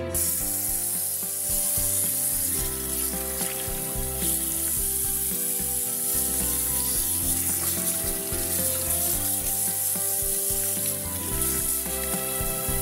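Steady hiss of tap water running into a metal pot of corn cobs, over background music.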